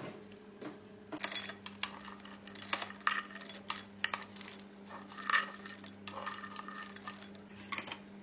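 Metal utensil knocking and scraping against cookware in irregular clinks, as when stirring food in a pot.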